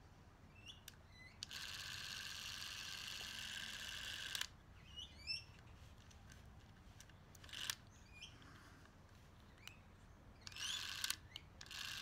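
Clockwork of a wind-up Yashica 8 standard 8 movie camera fitted with a clockwork self-timer, whirring steadily for about three seconds. Small mechanical clicks follow, then two short runs near the end.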